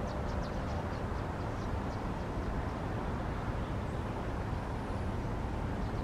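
Outdoor background: a steady low rumble with a faint patter of high chirps during the first two seconds.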